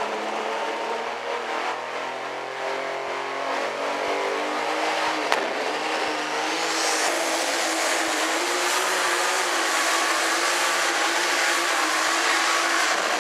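Ford 9600 pulling tractor's engine run hard at full throttle as it drags the weight sled down the track, very loud and steady, with a high whine rising partway through.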